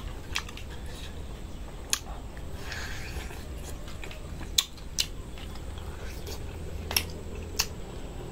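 A person chewing stewed pork knuckle, with six short sharp clicks spread through.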